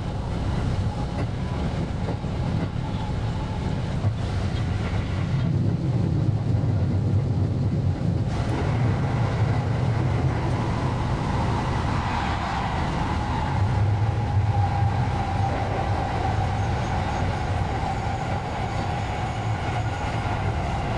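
JR West 223 series electric train running, heard from on board: a steady rumble of wheels on rail. About halfway through, a motor whine comes in and slowly sinks in pitch.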